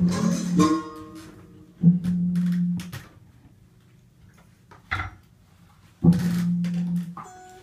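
Free-improvised music: short held low notes about a second long, starting abruptly and then breaking off, the first layered with higher tones. A brief scrape or knock falls between them, and the gaps are quiet.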